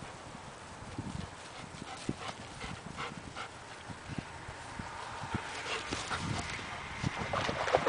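Two dogs moving about on gravel and grass: light, scattered paw steps and small clicks, with louder rustling near the end.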